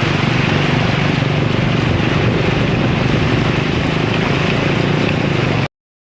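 A motor engine running steadily with a low drone, cutting off suddenly near the end.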